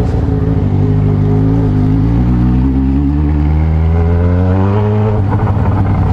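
Yamaha XJ6's inline-four engine running under way, its pitch climbing steadily for several seconds as the bike accelerates, then falling sharply about five seconds in. The bike has a strange noise that the owner later traces to air leaking at the engine's seals.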